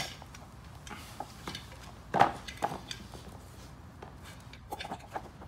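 Hands working a knobby tire and inner tube on the 12-inch spoked rear wheel of a Yamaha TT-R110, while the valve stem is worked into its rim hole: scattered light knocks and rubbing, with one louder thump about two seconds in.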